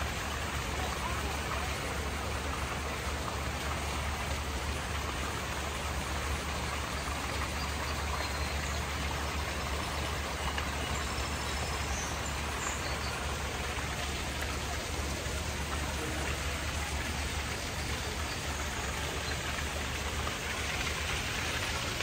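Steady rushing hiss of falling water, with a steady low rumble underneath.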